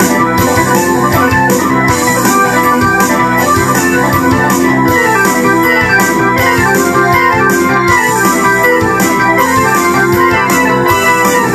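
A rock keyboard part played on an Ensoniq SD-1 synthesizer, dense and continuous, over a steady beat of sharp hits.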